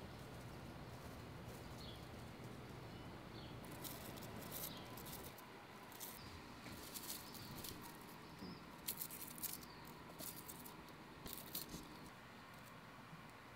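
Soft rustles and light ticks of fingers handling the leaves and thin stems of a small tree inside a glass terrarium, scattered irregularly over a faint steady hiss.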